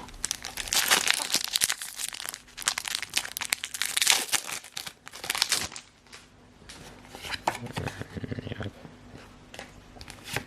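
Foil Pokémon booster pack wrapper being torn open and crinkled, in dense bursts of crackling for about the first six seconds, then quieter rustling and clicks as the cards are handled.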